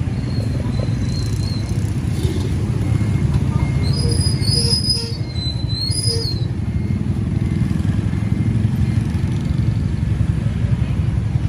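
Street noise of motorbike traffic, a steady low rumble, with a brief high-pitched squeal about four seconds in that lasts a couple of seconds.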